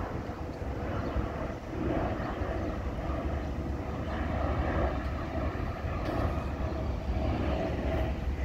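Jet airliner flying low overhead, its engines making a steady, continuous noise.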